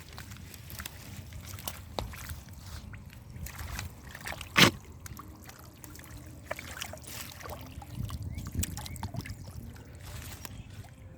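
Hands sloshing and squelching through mud and shallow water, with small irregular splashes. A single much louder slap or splash comes about four and a half seconds in.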